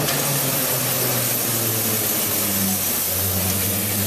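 Vintage steam-wagon bus approaching at low speed, giving a loud, steady hiss with a low hum beneath it.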